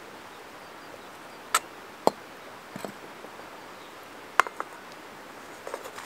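Metal pans knocking and clinking as they are lifted and set down on an outdoor stone hearth, a few sharp single knocks, then small clicks of a wooden spoon stirring in a pan near the end, over a steady faint hiss.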